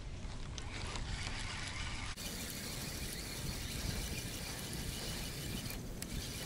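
Spinning fishing reel being wound on a feeder rod, a steady whirring of its gears as the line is retrieved.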